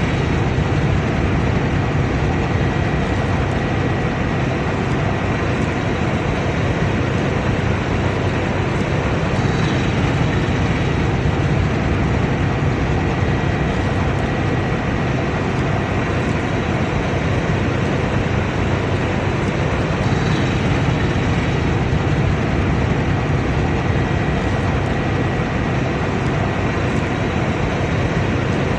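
Combine harvester running steadily under load: a dense, even mechanical noise from the engine and threshing machinery, with a faint high whine.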